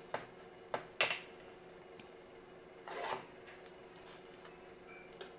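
Knife cutting through a baked oven pancake and clicking and scraping against the metal baking tray: a few short clicks, the loudest about a second in, and a longer scrape about three seconds in. A faint steady hum underneath.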